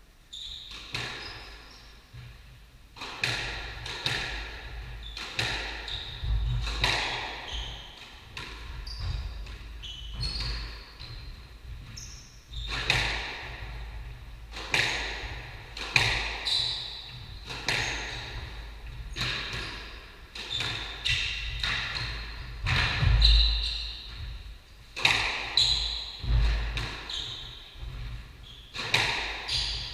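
A squash rally: the ball cracking off the rackets and the court walls about once or twice a second, each hit echoing in the court, with shoes squeaking on the wooden floor in between.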